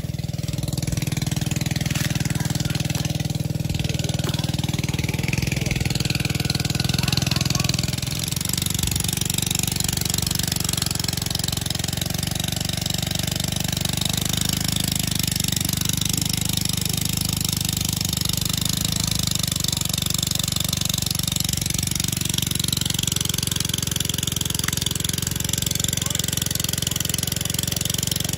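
A small engine running steadily, with a short dip in level about eight seconds in.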